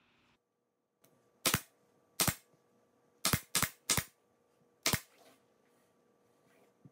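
Pneumatic staple gun running off an air compressor, firing six staples through fabric into a wooden 1x2 board. Each shot is a short, sharp snap, spaced irregularly, with three in quick succession about three seconds in.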